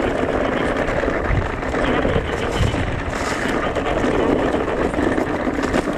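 Steady ride noise from an electric mountain bike on a trail: wind buffeting the microphone over an uneven low rumble from the tyres and bike rattling over the ground.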